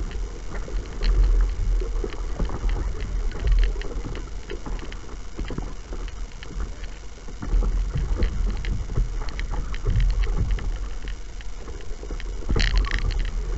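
Water splashing and lapping around a kayak under way, with a gusting low rumble of wind on the microphone. A louder splash comes near the end.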